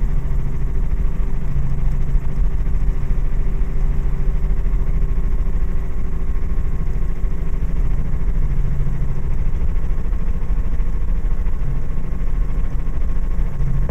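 Robinson R44 helicopter's piston engine and rotors running steadily in flight, heard from inside the cabin as a constant low drone with a few steady tones.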